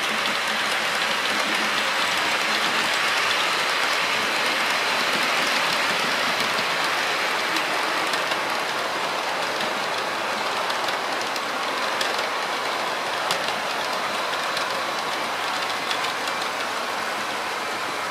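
Model train running along the layout's track: a steady rolling noise of wheels on rails, a little louder in the first half.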